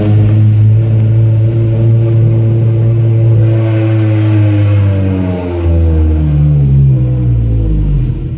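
2006 Toyota Corolla XRS's 2ZZ-GE four-cylinder engine running loud through an opened exhaust cutout while the car is driven. It holds a steady note for about five seconds, then the pitch falls and settles on a new note.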